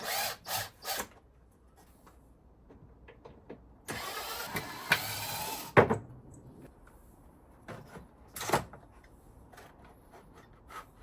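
Power tool run in short bursts: three quick bursts at the start, one run of about two seconds in the middle that ends with a sharp click, and another short burst later.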